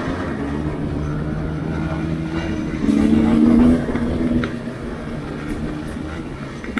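Dirt bike engine running under throttle, its pitch shifting as the rider works it through the terrain. About three seconds in it revs louder for under a second, then drops back and runs quieter.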